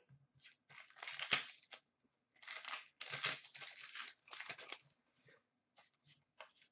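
Crinkling and tearing of a hockey card pack's wrapper being ripped open, in several rustling bursts with a sharp snap about a second in, then a few light ticks of cards being handled.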